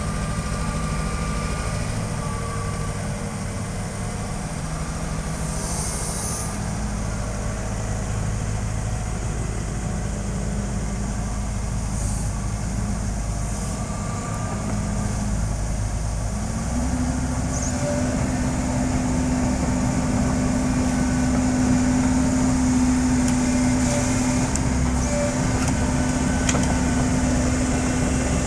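Sumitomo excavator's diesel engine running steadily, taking on a higher, steadier note about two-thirds of the way in and growing a little louder, with a few faint clanks.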